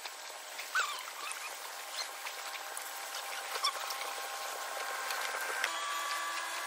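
Knife filleting a fish on a plastic cutting board: faint scattered clicks and a few short squeaks. A steady hum of several tones sets in near the end.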